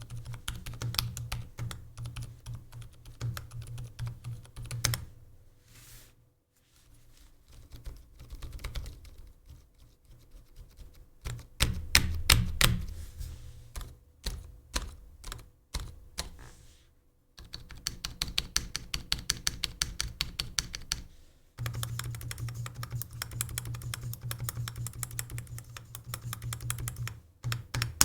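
Typing on a Varmilo VA87M tenkeyless mechanical keyboard with lubed Cherry MX Silent Red linear switches and PBT keycaps: soft, muted keystrokes in bursts of rapid typing with short pauses, the fastest run in the last few seconds.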